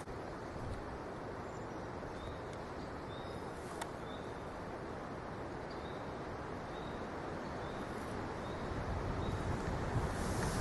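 Woodland outdoor ambience: a steady breezy rustle with a small bird repeating a short high note about every half second. Wind buffeting the microphone grows louder near the end.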